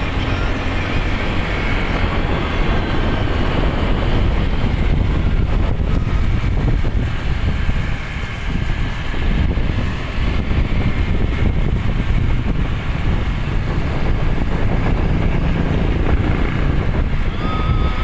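Motorcycle engine running at road speed, with wind buffeting the microphone; the engine eases off briefly about eight and ten seconds in.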